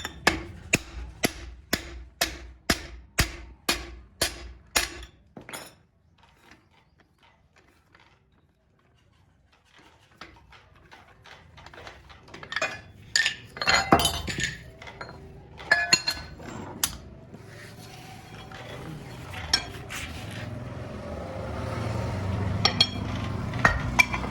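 Hammer striking metal, about two blows a second for some five seconds, then a pause. Irregular metallic knocks and clinks follow, and a low steady hum builds near the end.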